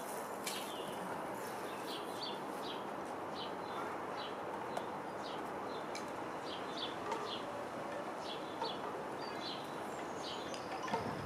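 Small birds chirping in short, scattered calls over a steady background noise.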